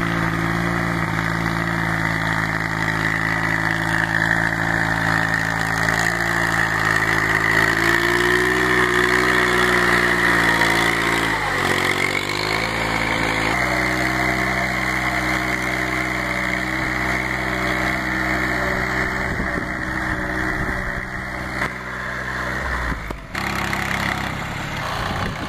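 Compact tractor engine running steadily under load while pulling a cultivator through soil. Its pitch rises a little about a third of the way in, then drops sharply and recovers near the middle.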